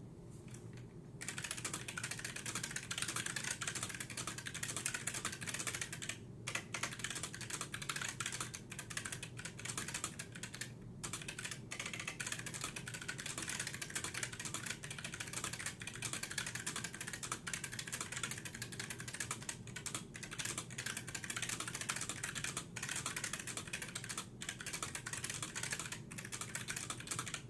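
Typing on a Sejin EAT-1010DS keyboard with Futaba MA switches and thick double-shot keycaps: a steady run of rapid key clicks starting about a second in, with brief pauses twice.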